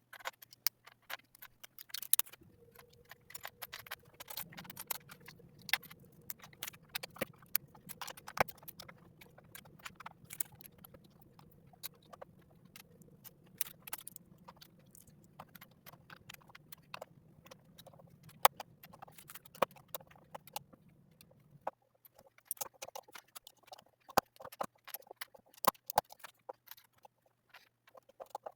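LEGO plastic pieces being handled, with irregular sharp clicks, taps and rattles as bricks are pulled apart or pressed together. A faint steady hum underneath cuts off about three-quarters of the way through.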